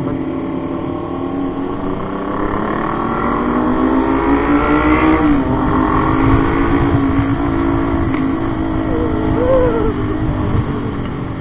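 Motorcycle engine accelerating, its pitch rising for about five seconds, then dropping suddenly at a gear change and running on steadily, over a low rumble.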